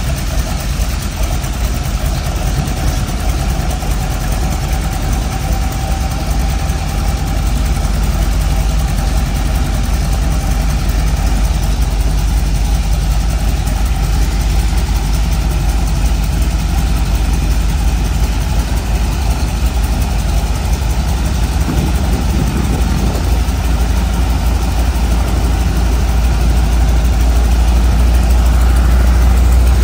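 Air Tractor crop duster's radial engine idling on the ground, propeller turning, a steady low running sound that grows a little louder near the end.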